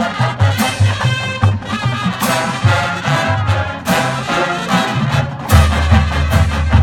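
A marching band playing, brass over drums keeping a steady beat; a low held bass note comes in near the end.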